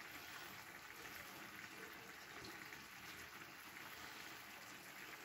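Faint, steady simmering of a clay tagine on the stove.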